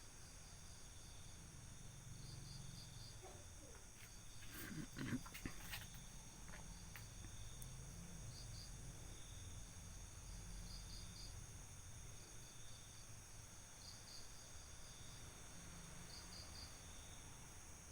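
Crickets and other night insects: short pulsed chirps repeating every couple of seconds over a steady high-pitched drone. A brief louder knock and rustle comes about five seconds in.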